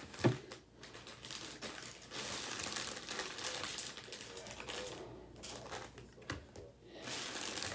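A small package's wrapping crinkling and rustling as it is handled and opened, with a thump just after the start.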